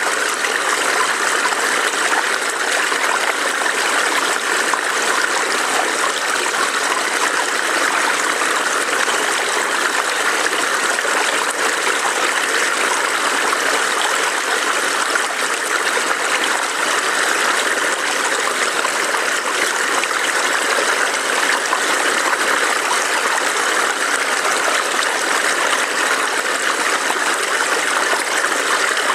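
A small forest stream burbling over rocks, a steady, unbroken rush of flowing water.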